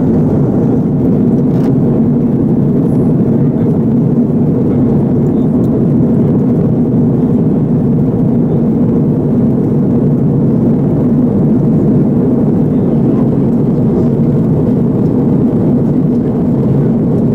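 Steady, loud cabin noise inside an Airbus A330-300 airliner in flight: engine and airflow noise, mostly low-pitched and unchanging.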